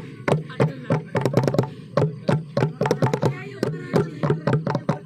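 Percussion group playing a fast, driving rhythm of sharp drum strikes, several a second.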